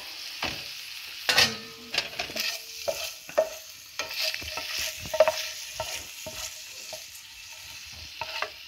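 Black spatula scraping and tapping through cooked ground beef in a nonstick frying pan, in many short strokes, over a steady faint sizzle from the still-hot pan.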